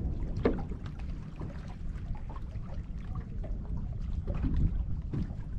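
Wind buffeting the microphone in a steady low rumble, with scattered small knocks and handling noises.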